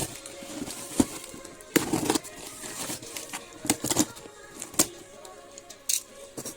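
Packaging and small items being handled: irregular clicks, taps and plastic rustling as goods are unpacked, with faint background music underneath.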